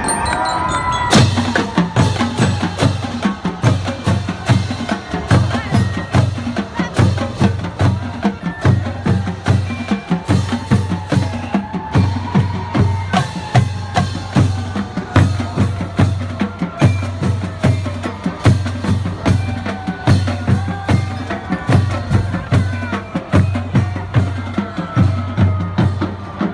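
Marching band drumline playing a cadence: rapid snare drum strokes over a steady, evenly spaced bass drum beat, coming in strongly about a second in.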